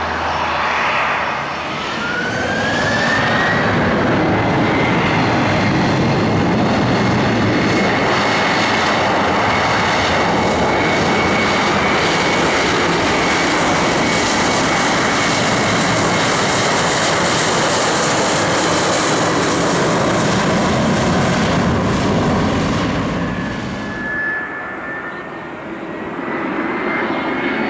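Boeing 737-800's CFM56-7B turbofans spooling up to takeoff thrust for the takeoff roll: a rising whine that settles into a steady high tone over loud jet noise. Near the end the noise drops away and an Airbus A320 on approach is heard, with a quieter rising whine.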